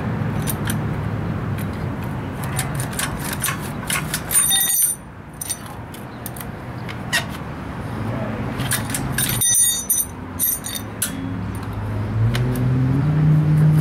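A small metal hand tool clicking, tapping and scraping against a child's bicycle, with two bright metallic jingles, about four and a half and nine and a half seconds in. A motor vehicle's engine hums underneath, getting louder near the end.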